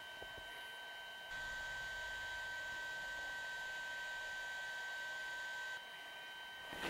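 Quiet room tone: a steady faint hiss with a thin, high, steady electrical whine, a little louder for a few seconds in the middle.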